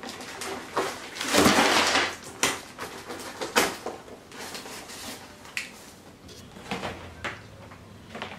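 A brown paper mailer envelope being torn open, with one loud rip about a second and a half in. It is followed by short crackles and rustling of paper and plastic wrapping as a plastic basket is pulled out.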